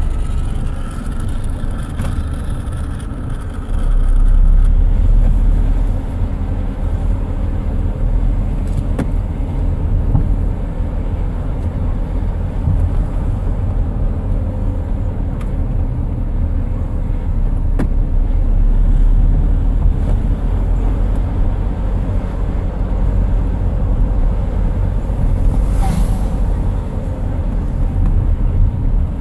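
Steady low rumble of a moving road vehicle, with louder swells a few times and a brief click near the end.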